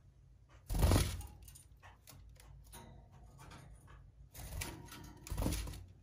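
Wire birdcages clattering and rattling as they are handled: a burst of metallic clinks with a dull bump about a second in, and another longer one near the end.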